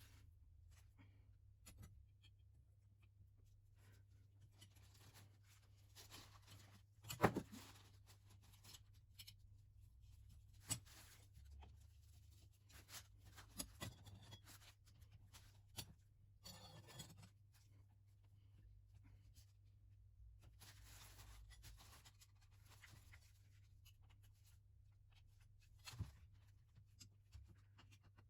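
Faint, scattered handling noises: small clicks, one louder knock about seven seconds in, and short rubbing or scraping sounds over a low steady hum.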